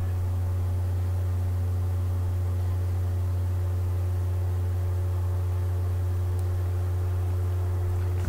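A steady low hum with a few faint steady tones above it, unchanging in level.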